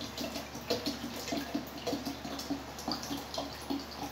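Water being poured from a plastic container into a blender jar full of chopped chayote, splashing unevenly as it lands on the pieces.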